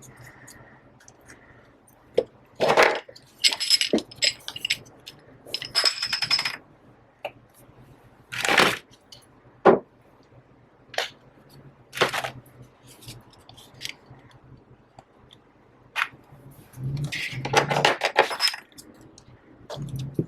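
Small clamps being handled and clipped onto the edges of an iPad Pro 12.9 to hold its freshly glued screen while the adhesive sets. The result is a series of separate clicks and clinks, several of them with a brief metallic jingle.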